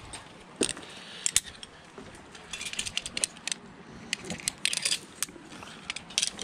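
Metal zipline harness hardware, carabiners and buckles, being handled: scattered sharp clicks and short jangling rattles.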